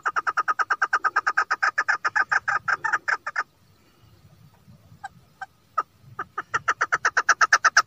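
Chukar partridge giving its rapid chuk-chuk call, a fast even run of about nine notes a second. The run breaks off about three and a half seconds in, a few single notes follow, and the fast series starts up again near the end.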